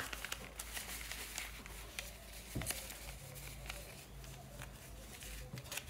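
Paper cut-outs and paper packets being handled and shuffled by hand: faint rustles with many light taps and clicks, one a little louder about two and a half seconds in.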